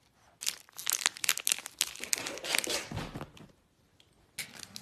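Rapid rustling and scratching close to the microphone, a kitten pawing and clawing at a blanket. It stops for about a second near the end, then starts again.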